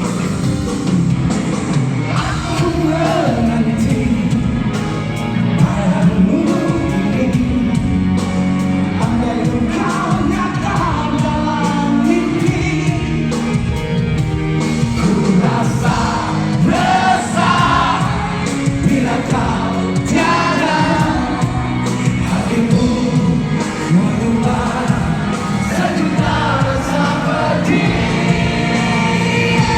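A live band playing with a lead vocal singing over drums, bass and guitars, at a steady loudness.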